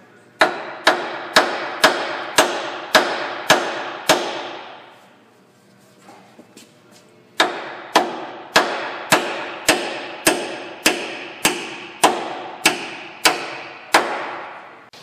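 Hammer blows driving a suspension bolt up and out through the rear knuckle of a Ford Explorer: steady strikes about two a second, each ringing briefly. About eight blows, a pause of about three seconds, then about a dozen more.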